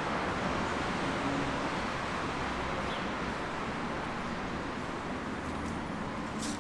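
City-centre street ambience: a steady hum of distant road traffic.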